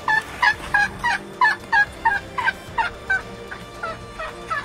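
A young elephant gives a quick run of high squeaking calls, about three a second, each dropping in pitch and weakening toward the end. It is calling a blind elephant to follow it through the floodwater.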